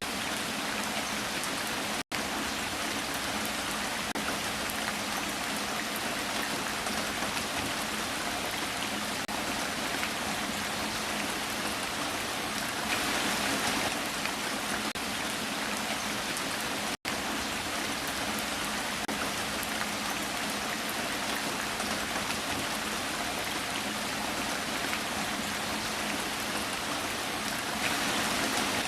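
Heavy rain falling steadily: an even hiss of many pattering drops. It cuts out for an instant twice, about 2 s and 17 s in.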